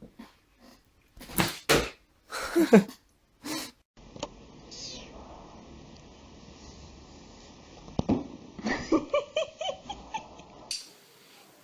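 Cats meowing and yowling across a few short clips, with loud drawn-out calls in the first few seconds and a quick run of short calls near the end.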